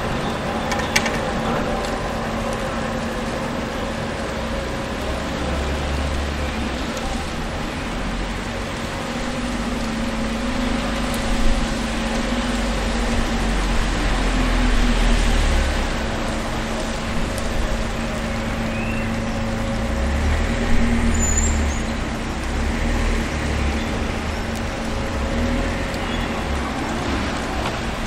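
City street traffic ambience: a continuous wash of traffic with a steady low hum underneath, as vehicle engines swell and fade several times while they pass. A sharp click about a second in.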